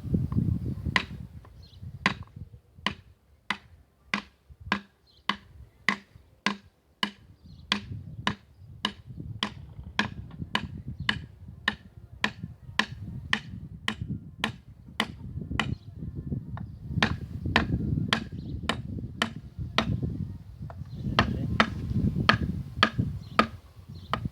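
Steady light taps, about two a second, driving a ringed piston little by little down through a tapered guide sleeve into a cylinder of a combine engine.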